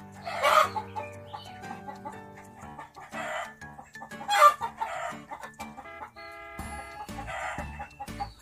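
Chickens clucking and squawking in about five short, loud calls, over background music.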